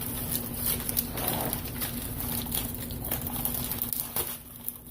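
Hands working at a shipping box to open it without scissors: irregular taps, scrapes and rustles of the packaging, over a steady low hum.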